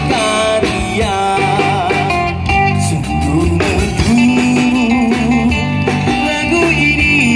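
Amplified live band music: a guitar playing a lead line with bent, wavering notes over bass guitar and a drum kit.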